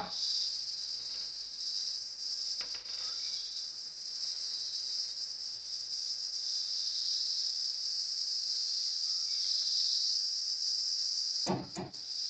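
Steady high-pitched hiss with an insect-like buzz, heard throughout. There is a faint tap about two and a half seconds in, and a few short knocks near the end as writing on the board begins.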